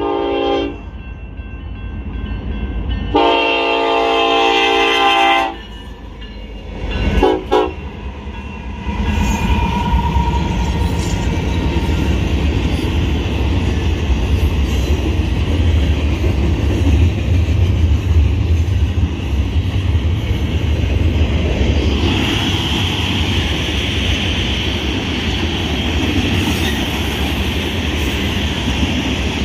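Union Pacific freight locomotive's air horn sounding for a grade crossing: one blast ending just after the start, a long blast a few seconds in, then two short ones. After that, the locomotives and the manifest train's freight cars pass with a steady, loud rumble and wheel-on-rail noise, which turns more high-pitched and rattly about two-thirds of the way through.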